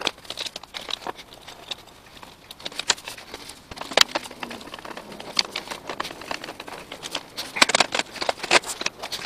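Light clicks and knocks of a folding metal table's tubular legs and frame being handled and set up. One sharp click comes about four seconds in, and several follow close together near the end.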